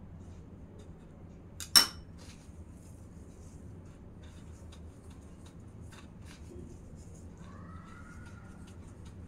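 One sharp clink of something hard against a plate, with a brief ring, a couple of seconds in. It is followed by faint dry crackling and rustling as a hand presses an egg-dipped kebab into a plate of raw broken vermicelli.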